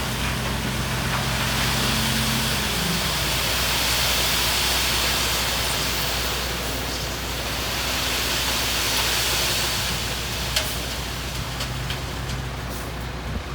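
Heavy construction machinery running steadily under a wash of noise, its engine note shifting about three seconds in, with a short sharp click or two near the end.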